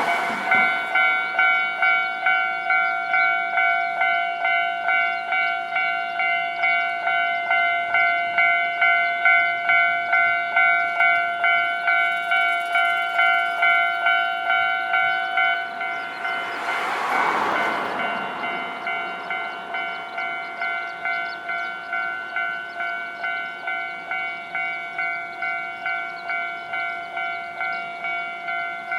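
Japanese railway level-crossing warning bell ringing in a steady clang about three times every two seconds. About halfway through there is a brief rush of noise, and the bell rings on a little quieter afterwards.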